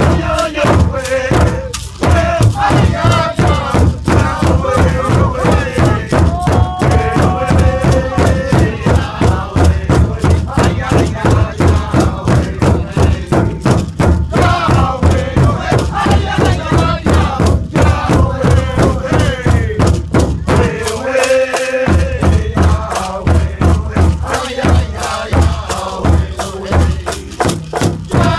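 Powwow drum group singing in unison over a steady beat struck on one large hide-covered powwow drum. The drumbeat stops for about a second about three quarters of the way through while the voices carry on, then resumes.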